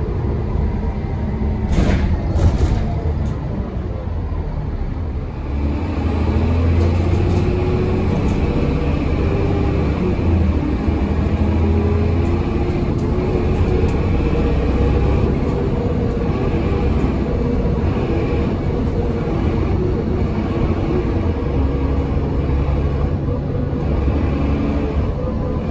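Dennis Trident double-decker bus with a four-speed Voith automatic gearbox, heard from the upper deck on the move: the diesel engine pulls hard under heavy throttle, its note rising and falling as the throttle is pumped. A couple of knocks about two seconds in, and the engine grows louder about five seconds in.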